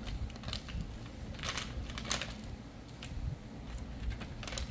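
A few short crinkling, scraping handling noises, four brief bursts over a low rumble, as the bent battery cell is handled during the bend test.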